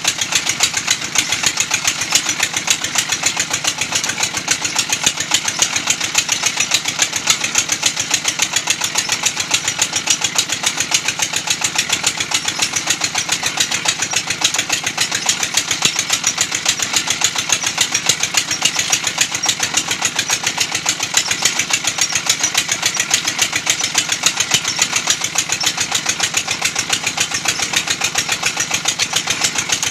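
Brick-making machine running steadily, with a fast, even knocking rhythm.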